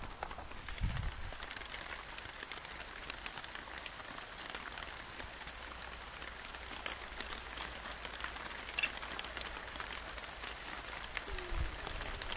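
Steady patter of rain: an even hiss full of fine ticks, with a dull low bump about a second in and another near the end.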